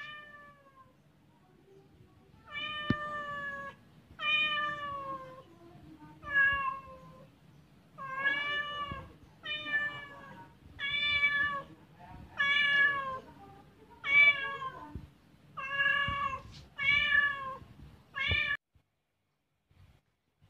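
Domestic cat meowing over and over, about a dozen separate meows roughly a second and a half apart, each rising and then falling in pitch; the meowing stops near the end.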